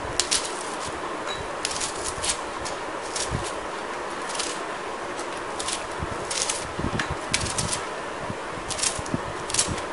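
Light irregular clicks and rustles as pieces of onion are dropped by hand into a pressure cooker of soaked dal and gongura leaves, over a steady background hiss.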